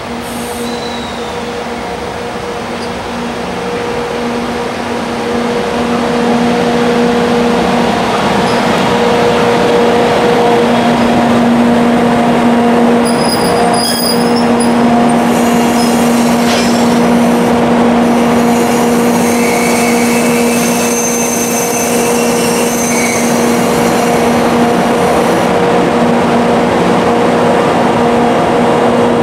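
Double-headed EF64 electric locomotives hauling an oil tank train into a station: a steady electric hum over the rumble of the train grows louder as they approach and pass. About halfway through, high thin squeals from wheels and brakes come in as the tank wagons roll by braking to a stop, with a sharp click among them.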